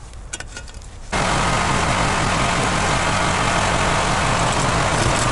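A loud, steady engine-like rumble with hiss, starting abruptly about a second in and running on unchanged.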